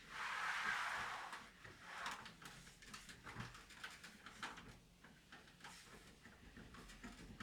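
Light household handling sounds during cleaning: a brief swish lasting about a second and a half at the start, then scattered soft clicks and taps.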